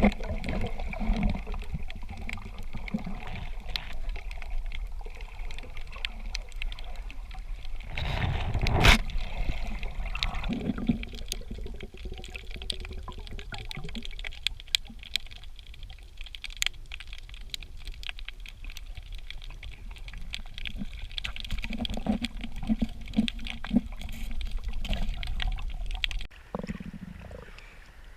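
Water sloshing and bubbling close around a snorkeller's camera, with a few sharp knocks, the loudest about nine seconds in.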